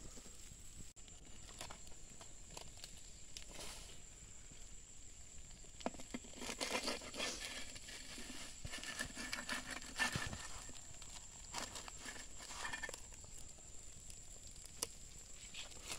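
Crinkling and rustling of a scorched leaf wrapping being handled, with scattered clicks and light scrapes of a metal spoon, busiest in the middle stretch.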